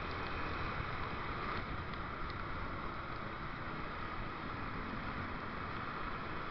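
Steady wind and road noise from a motorcycle riding in traffic, picked up by an action camera in a waterproof case with no external mic.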